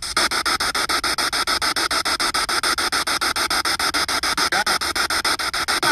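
Spirit box sweeping through radio stations: rapid, even chopping static at about ten pulses a second, with a brief faint rising chirp about four and a half seconds in, which the uploader marks as a voice saying "who's that".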